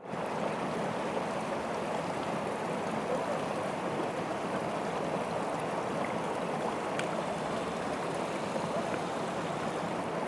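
Waterfall water rushing steadily in an even, unbroken roar, with one faint click about seven seconds in.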